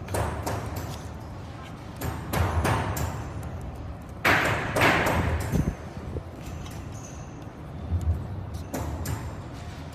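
Clicks, knocks and rustling from parts and tools being handled during a battery and controller swap. The loudest sound is a harsh rasp about four seconds in.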